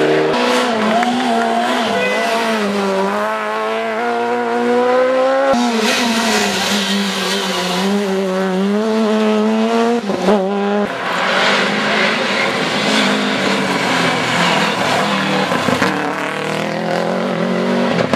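Rally car engines revving hard on a special stage, the pitch rising and falling over and over as the driver shifts and lifts. About ten seconds in a car comes closer and the sound turns into a louder, noisier rush of engine and tyres.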